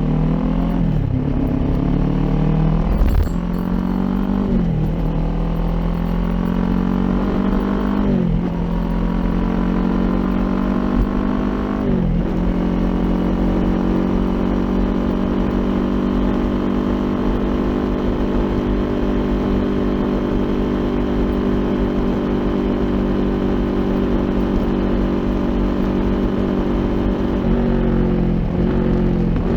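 Kawasaki Ninja 400's parallel-twin engine through an Akrapovic aftermarket exhaust, pulling up through the gears with four rising revs, each cut off sharply by an upshift, then holding a steady cruise. Near the end the revs dip and rise a few times.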